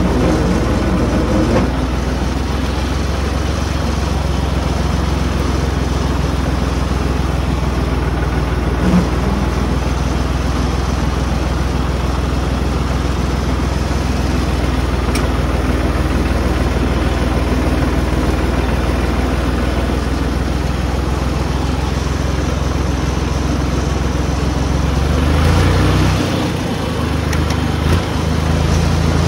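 Farm tractor's diesel engine running steadily under load while mowing through tall grass. Near the end the engine note rises, dips for a second or two, then picks back up.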